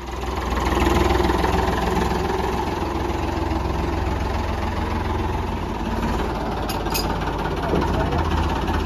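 Ford 3600 tractor's three-cylinder engine running steadily at low speed as the tractor is driven slowly, with a couple of brief high clicks about seven seconds in.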